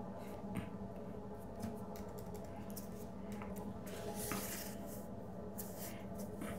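Quiet room with a steady low electrical hum, and scattered faint clicks and rustles from a person at a laptop. There are short hissy rustles about four seconds in and again near six seconds.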